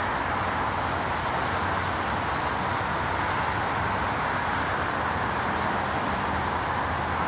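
Steady distant rumble and hiss as a Comeng electric suburban train approaches from far off along the line, still faint.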